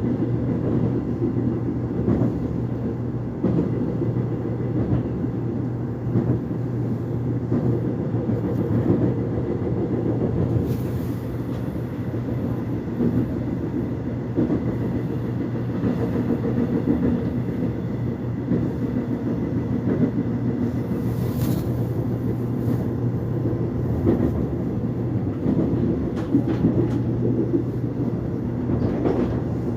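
Steady running rumble of a Korean commuter subway train heard from inside the carriage, wheels on rails and traction motors, as the train travels between stations. Two brief faint high squeals or hisses rise above it partway through.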